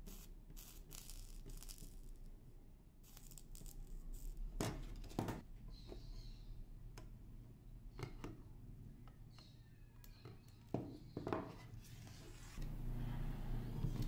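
Hand-tool work on through-hole parts on a keyboard circuit board: a few sharp snips and clicks, with a brief faint hiss about six seconds in. A low steady hum comes in near the end.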